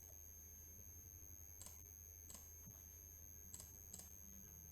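Near silence with four faint clicks from computer input, typical of a mouse and keyboard being worked, over a faint steady high electronic whine.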